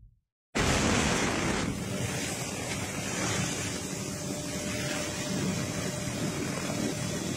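Steady rushing noise of wind and engine from an aircraft flying over the forest, with a faint steady hum, starting suddenly about half a second in.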